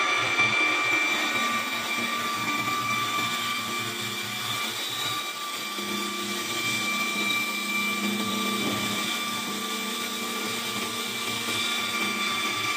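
CNC wood lathe running, its motor-driven cutter head working a spinning wooden blank, with a steady high whine over the machining noise.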